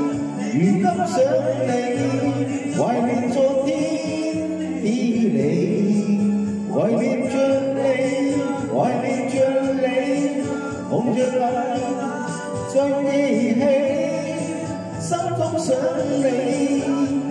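Music: a man singing a slow pop song over a backing track, his melody gliding and wavering between notes.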